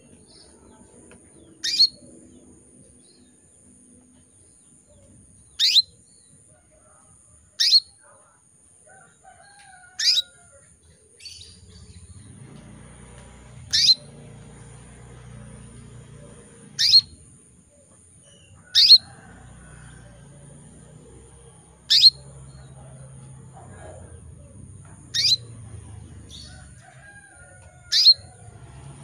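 Female canary giving about ten short, sharp calls, each a quick downward sweep, spaced two to four seconds apart. These are a hen in breeding condition calling for a male.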